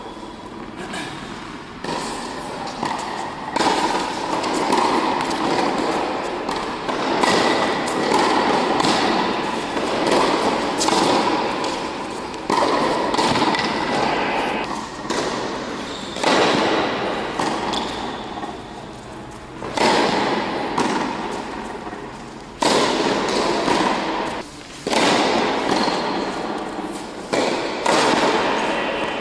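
Tennis ball struck by rackets in a rally in a large indoor tennis hall: a sharp hit every two to four seconds, each followed by a long echoing tail.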